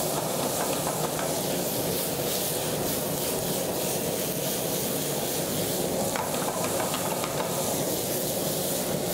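Chicken and peppers frying hard in a pan over a high gas flame, a steady sizzling hiss as the pan flares up and is tossed.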